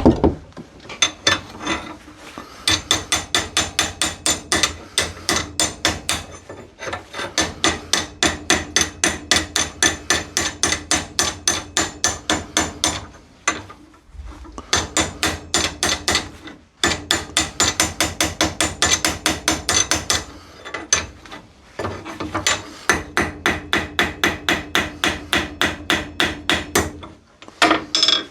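A hammer rapidly striking a seized, rusted Record G clamp, about four blows a second in long runs with short pauses, the metal ringing under each blow. The tapping is meant to break up the rust inside the screw thread.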